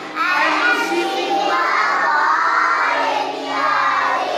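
A group of young children singing a song together in unison, with a long held note partway through.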